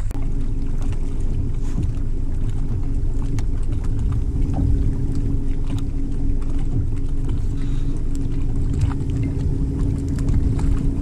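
Steady low rumble of wind and water around a bass boat on open lake water, with a steady hum running under it and a few faint clicks.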